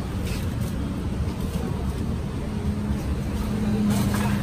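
Steady low rumble of passing street traffic, with an engine hum that swells near the end.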